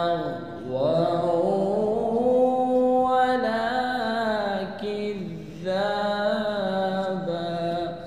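A man reciting the Quran in melodic tajweed style, drawing each word out into long, ornamented held notes that bend up and down in pitch. The recitation comes in three phrases, with short breaks about half a second in and again around five and a half seconds in.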